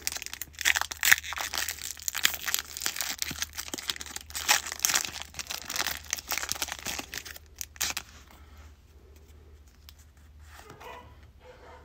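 Foil wrapper of a Pokémon TCG booster pack being torn open and crinkled by hand, a dense crackling that lasts about eight seconds, then dies down to quiet handling of the cards.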